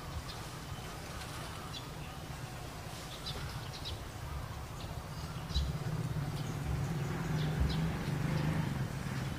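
Outdoor ambience: a steady low rumble that grows stronger in the second half, with scattered short high chirps.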